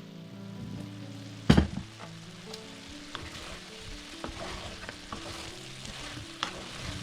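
Food sizzling in a frying pan while being stirred, with small scrapes and clicks of the spoon and one loud knock about a second and a half in.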